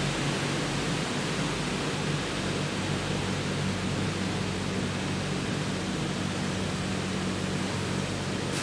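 Steady running noise of PCB recycling plant machinery: an even rushing noise with a steady low motor hum underneath, and a short click near the end.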